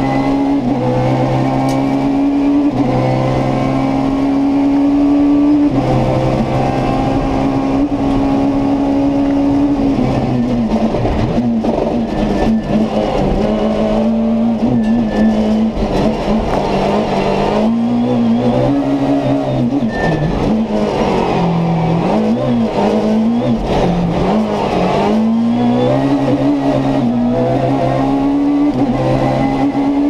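Peugeot 306 Maxi rally car's four-cylinder engine at high revs, heard from inside the cabin. Its note holds high at first, then drops and rises again and again through gear changes and hard acceleration in a slow section about halfway through, before climbing back and holding high near the end.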